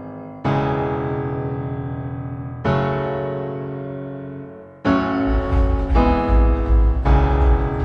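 Background music: sustained electric-piano chords, two of them struck and left to fade, then a fuller section with heavy bass and a chord change about every second from about five seconds in.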